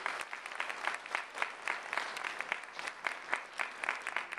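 Audience applauding. The dense clapping thins out toward the end, leaving more scattered individual claps.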